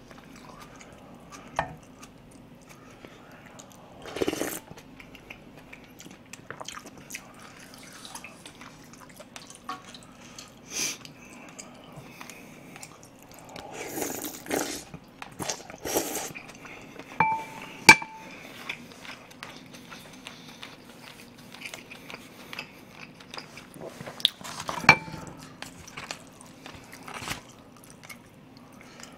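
Close-miked eating of pork-and-rice soup: a ladle stirring broth in a metal pot, broth sipped from a spoon, and chewing. Spoon and chopsticks clink against the pot and bowls now and then, the sharpest a brief ringing clink about eighteen seconds in.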